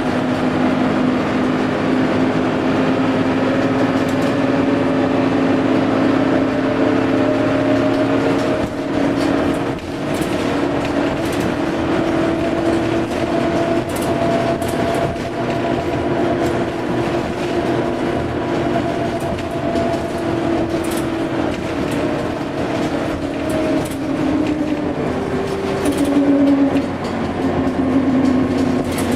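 Dennis Dart SLF single-deck bus running under way: a continuous engine and driveline drone carrying whines that slowly rise and fall in pitch with road speed, with frequent short rattles and clicks from the body and fittings.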